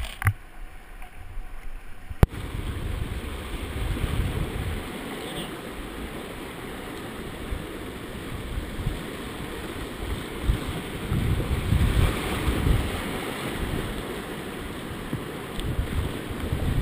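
Rushing whitewater of the Soča river around a kayak, with water sloshing against the hull and paddle, and low rumbling surges on the microphone. A single sharp click about two seconds in.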